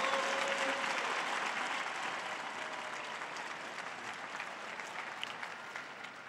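Large open-air crowd applauding and cheering, loudest at the start and slowly dying away.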